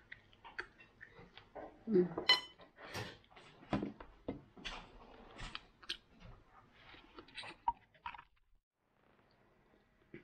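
A person eating at a table: chewing and biting, with many short irregular clicks and clinks of cutlery and plates. A brief hummed voice sound comes about two seconds in.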